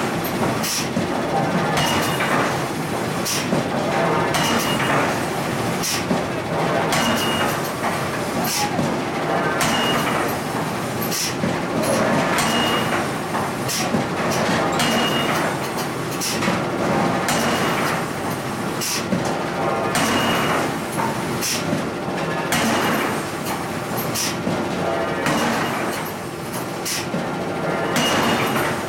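Forge shop machinery running steadily, with sharp metallic clanks about once a second as hot steel is worked under a forging hammer.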